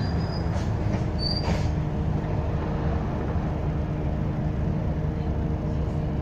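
Double-decker bus in motion, heard from inside the saloon: its diesel engine and drivetrain run with a steady low rumble and hum, with two brief high squeaks in the first second and a half.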